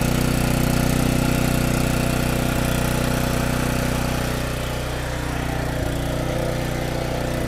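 Bear 9 HP single-cylinder, air-cooled gasoline engine running steadily under raised throttle, easing slightly and getting a little quieter about four and a half seconds in.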